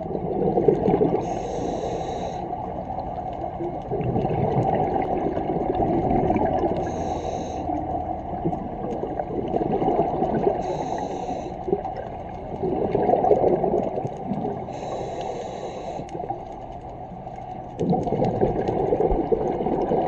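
Scuba regulator breathing heard underwater: four short hissing inhales a few seconds apart, with rumbling, gurgling exhaled bubbles between them.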